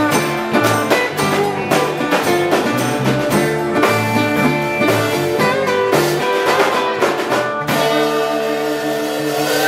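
Live honky-tonk country band playing: guitars, electric bass and drum kit in a steady beat. About eight seconds in they hit a final chord and let it ring out.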